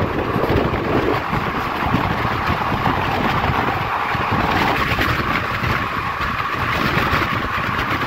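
Rushing wind and rumbling running noise of a fast-moving train, heard from the side of a coach, with wind buffeting the microphone.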